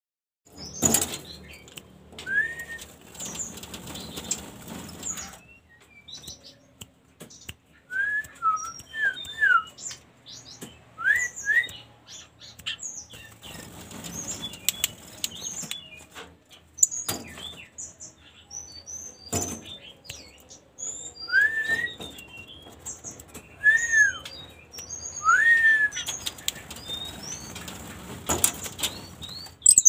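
A caged jungle flycatcher (sikatan rimba) flutters around its wire-mesh cage, wings flapping in several bursts. Between the bursts it gives short whistled call notes that curve up and down, and tiny high chirps.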